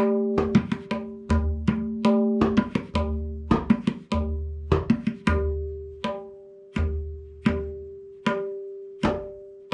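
A pair of tabla played solo in jhaptal: ringing strokes on the small right-hand drum (dayan) over deep bass strokes on the larger left-hand drum (bayan). The strokes come in dense flurries for the first half, then thin out to single ringing strokes about every three quarters of a second, most with a bass stroke under them.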